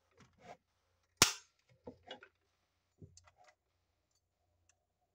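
A sharp snap about a second in as a door of a 1/24 die-cast Mercedes-AMG GT R model car is pushed shut, followed by a few fainter clicks and knocks as the model is handled and lifted.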